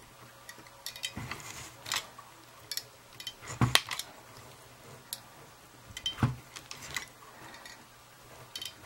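Handling sounds of two stranded wire ends being twisted together with wire strippers in hand: scattered, irregular small metallic clicks and knocks.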